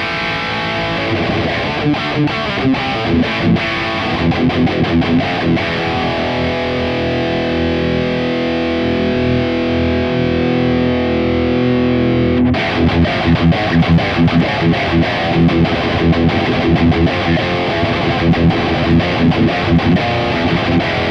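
High-gain distorted electric guitar played through a Mooer Brown Sound preamp pedal and its built-in cab sim: chugging palm-muted riffing, held ringing chords in the middle, then fast chugging again after a brief break about twelve seconds in. The tone is usable but a little muffled, lacking top end.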